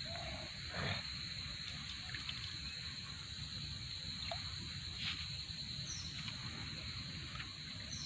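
Steady high-pitched insect drone over a low rumble, with a couple of faint, brief rustles about a second in and again near five seconds.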